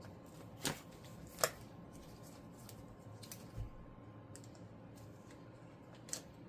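Small sharp plastic clicks and light handling noise as a wire terminal is worked into a wiring-harness connector, the loudest click about a second and a half in, with a soft knock midway.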